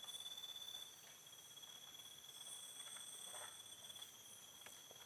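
Near silence with faint, steady insect chirring, like crickets, and a few soft faint ticks about midway.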